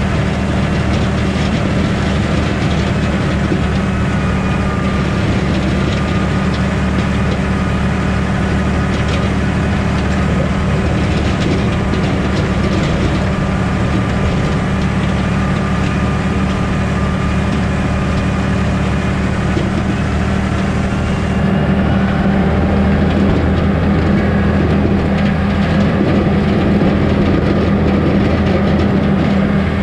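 Valtra T174D tractor's six-cylinder diesel engine running steadily under load while it pushes a front-mounted snow plough through deep snow, with a faint whine and scattered knocks. The engine grows a little louder about two-thirds of the way through.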